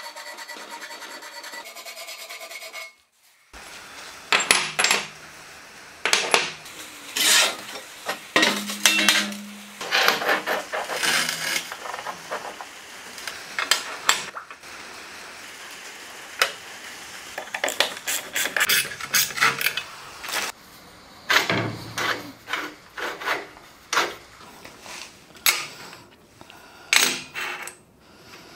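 A hand file rasping along the edge of a slot in a steel plate for the first three seconds or so. Then a long run of separate sharp metallic clinks and clanks as small steel plates and bars are handled and set down on the plate.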